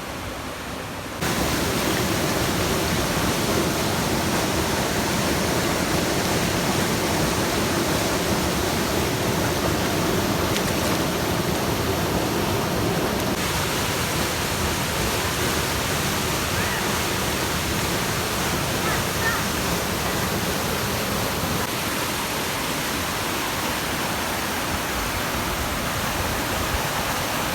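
A waterfall's water rushing in a steady roar, stepping up in loudness about a second in.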